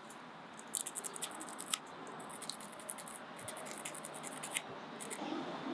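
Fine-grade sandpaper scratching on the small metal contact pieces of a power window switch, in quick short strokes that come in bursts, scrubbing off carbon build-up.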